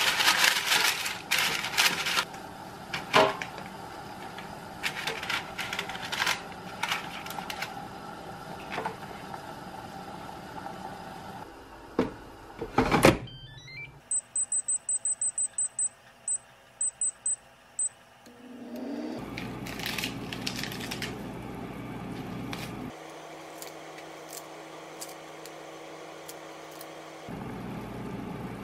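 Parchment paper rustling and crackling as it is pressed into an air fryer basket, then a clunk as the basket goes in. The Gipfel air fryer's touch panel gives a quick run of high beeps and a few more as the temperature is set, then its fan motor starts with a short rising whir and runs steadily.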